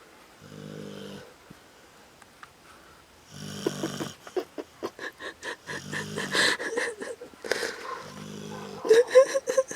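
A sleeping dog snoring in regular, low snores about every two seconds, with clicking sounds between the breaths. Near the end comes a short wavering, higher-pitched sound.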